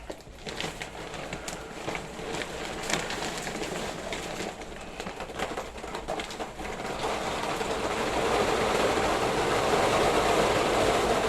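Dry cat food kibble being poured from a large 44-pound bag into a container. Scattered rattling pellets at first, then from about seven seconds in a steady, dense pouring rush that grows louder.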